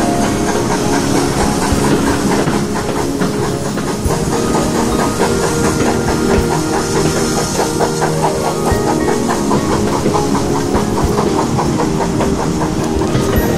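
Steam train running, heard from a carriage window: a steady hiss of steam over a quick, rhythmic clatter of the train on the track.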